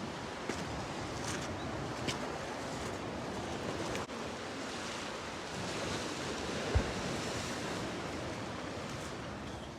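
Sea surf washing against the shore, with wind on the microphone. A few faint clicks come in the first couple of seconds, and there is a single low thump about seven seconds in.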